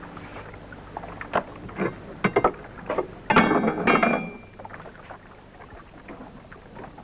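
Knocks and clatter of gear aboard a sailing barge: a handful of sharp separate knocks, then a louder clatter with a brief ringing note about three seconds in, over a steady low background.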